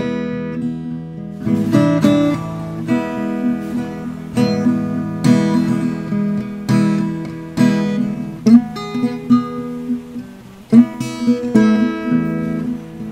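Blues instrumental on acoustic guitar: plucked notes and strummed chords that ring and fade.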